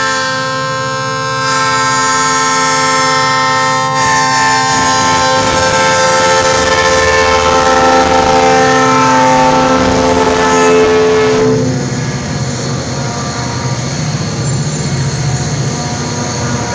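Diesel locomotive air horn sounding a chord at a road crossing, its pitch dropping as the locomotive passes, then cutting off suddenly about eleven and a half seconds in. After that the locomotives' diesel engines run past with a low rumble.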